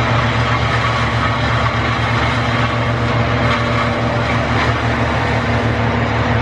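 Heavy engine of tree-removal equipment running steadily at a constant speed, a low, even hum.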